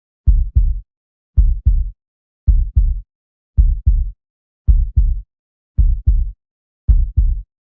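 Heartbeat sound: a steady lub-dub, each beat a pair of deep thuds, repeating about once every 1.1 seconds, seven beats in all, with silence between.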